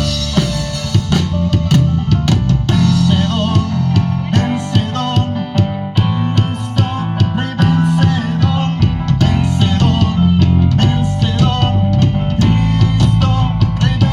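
Band playing an instrumental passage: a drum kit with bass drum and snare strokes over sustained low notes and a melodic line.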